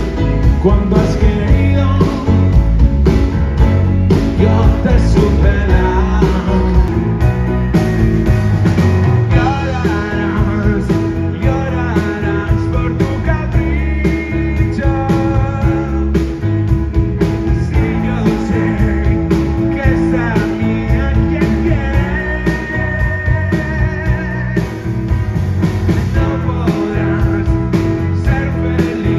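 Rock band playing live: an instrumental stretch with drums, bass and electric guitar carrying the melody, with no sung words.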